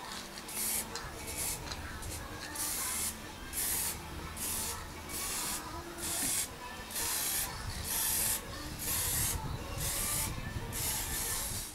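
Handheld aerosol spray can sprayed into the tube of a large reflecting telescope during its maintenance, in a long series of short hissing squirts, roughly one or two a second.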